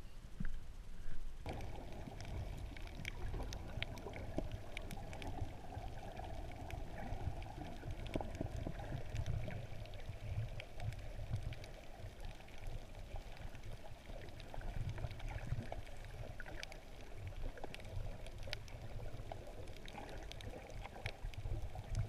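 Muffled underwater sound picked up by a camera under the water over a coral reef: a steady low rushing and sloshing of water with scattered small clicks. It sets in about a second and a half in.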